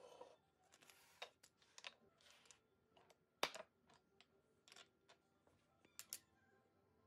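Small hardwood toy parts clicking and knocking as they are handled and set down on a wooden workbench: scattered light wood-on-wood clicks, the sharpest a little past three seconds in and two more close together near six seconds.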